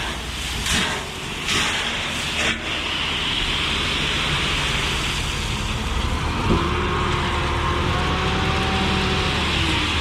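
Heavy diesel equipment running steadily, with a steady engine tone joining about six and a half seconds in.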